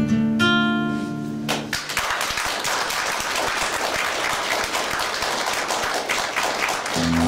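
A classical guitar's final chord rings out for about a second and a half, then an audience applauds for about five seconds. Near the end the guitar comes in again with a new chord.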